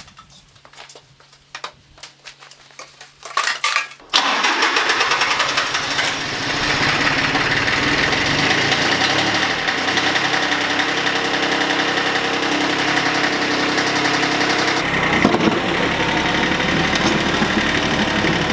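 Bolens G152 subcompact tractor's diesel engine being started: a few clicks over a faint steady hum, a brief crank about three and a half seconds in, then the engine catches about four seconds in and runs steadily.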